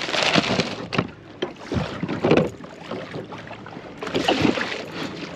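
Water splashing and sloshing against a kayak hull in irregular surges.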